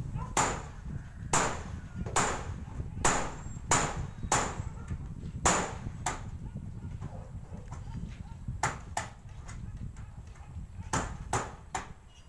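Hammer blows on a corrugated galvanized iron roof sheet, sharp metallic strikes with a short ring. About eight come in the first six seconds, then a pause, then two quicker runs of three and four strikes near the end.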